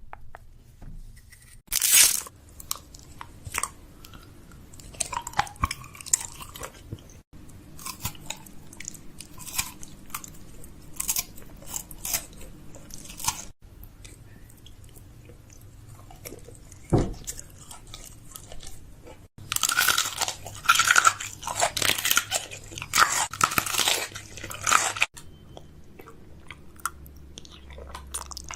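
Close-up crisp crunching and clicking in irregular bursts, with a sharp crack about two seconds in and a dense run of crunches around twenty seconds in.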